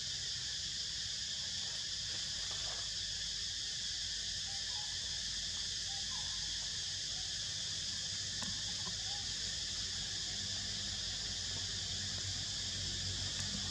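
Steady high-pitched drone of insects, unbroken throughout, over a low rumble, with a few faint short chirps in the middle.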